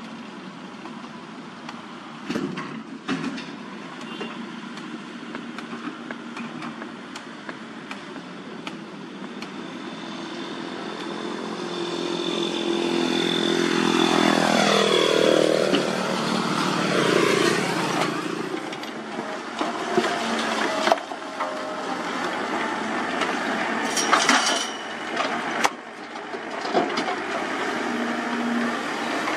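Komatsu hydraulic excavator's diesel engine running as it works, with a few sharp knocks of rubble dropping into a steel dump-truck bed. The engine sound swells to its loudest about halfway through, with a falling pitch, then settles back.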